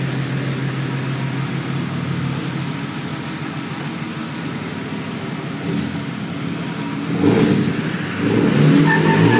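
Diesel pickup-truck engines (Duramax and Cummins) running steadily under load. They rise in revs about seven seconds in and get louder near the end, where a high squeal of tyres begins.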